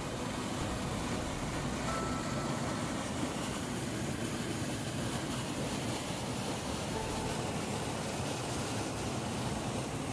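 Water gushing from a concrete canal outlet and churning into the channel below, a steady rushing.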